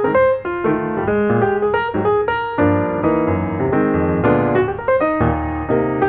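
Background piano music: a steady flow of struck notes and chords that ring and fade.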